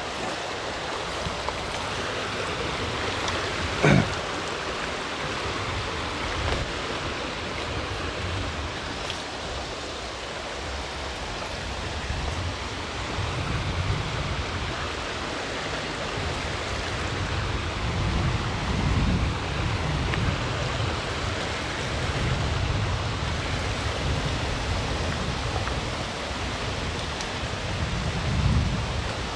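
Steady rush of flowing stream water, with uneven low rumbles of wind on the microphone in the second half and a brief sharp sound about four seconds in.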